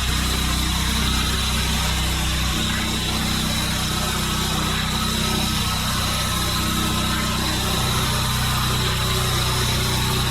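Pressure washer running steadily: an engine-like hum under a constant hiss of water spray.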